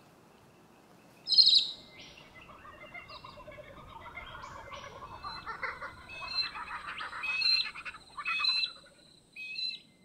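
Wild birds calling: a short burst of high chirps about a second in, then a Laughing Kookaburra's cackling laugh building up through the middle, with other birds' clear whistled notes near the end.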